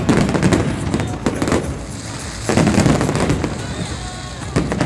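Aerial fireworks display: booming shell bursts with sharp crackles, a fresh loud volley coming about halfway through and another near the end.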